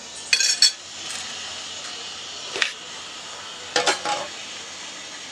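Metal cutlery clinking against a plate: two sharp clinks about half a second in, another near the middle, and a pair near the end, over a steady hiss.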